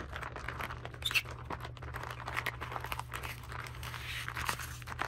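Plastic foil pouch crinkling and crackling as hands press and squeeze it, working the cleaning liquid down into the grooming glove inside.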